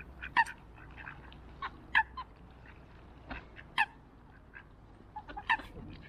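Ducks on the water calling: short, sharp quacks, four loud ones spaced a second and a half to two seconds apart with softer calls between, over a faint low rumble.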